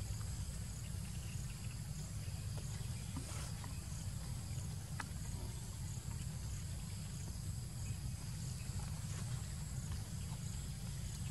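Outdoor ambience of insects trilling steadily at a high pitch with a faint regular pulse, over a low steady rumble, with a few faint clicks.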